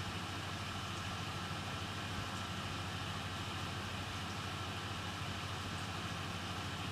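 Steady whirring hum and hiss of a hot-air rework station's blower running while solder is reflowed on a laptop's power jack.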